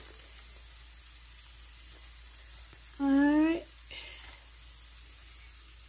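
Mushrooms sautéing in olive oil in a pan, sizzling steadily. A short rising vocal sound comes about three seconds in.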